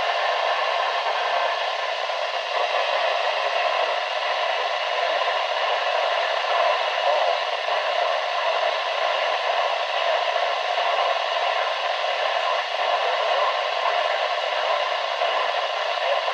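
Steady static hiss from a NOAA weather radio receiver's speaker.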